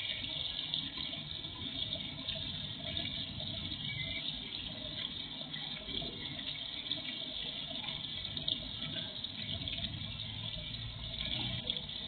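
Small pond fountain splashing steadily into the water.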